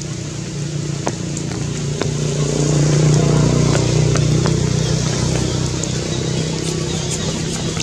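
Motor vehicle engine running with a steady low hum. It grows louder about two to three seconds in and eases off again, with a few faint ticks over it.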